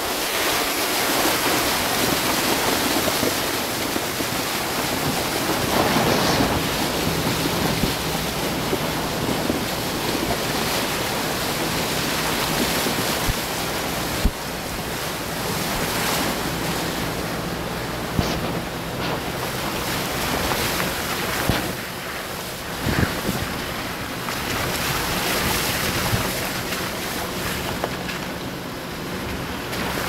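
Water rushing and splashing as a car's front wheel drives through a shallow stony mountain stream, with a low engine note underneath and a few sharp knocks of stones under the tyres. Wind buffets the microphone.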